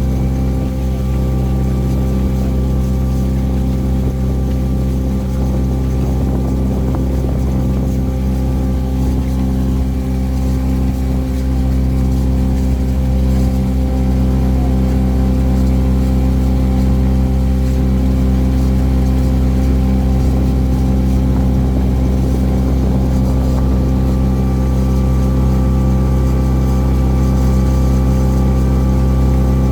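A cruise boat's engine running steadily: a low, even drone that holds one pitch throughout.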